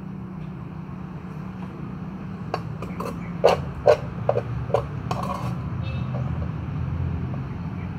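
A metal spoon knocking against clear plastic food tubs: about eight sharp clicks over roughly three seconds, the two loudest near the middle, over a steady low background rumble.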